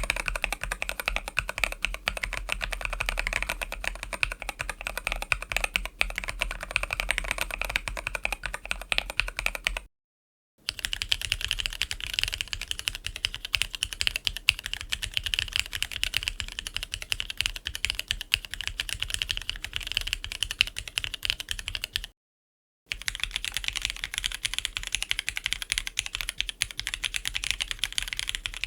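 Fast typing on a mechanical keyboard with modded Cherry MX Nixie linear switches, a dense run of key clacks. It comes in three stretches, each broken off by a brief dead-silent cut about ten and twenty-two seconds in. The later two stretches sound brighter.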